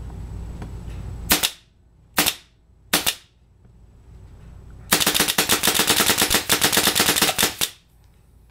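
Autococker paintball marker with a pneumatic-assisted hair trigger firing on compressed air: three single shots about a second apart, then a rapid string at roughly ten shots a second for nearly three seconds that stops suddenly.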